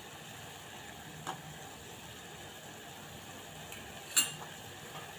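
Steady hiss of a pot of herbal decoction boiling on the stove, with a spoon clinking against the pot faintly about a second in and more sharply near the end.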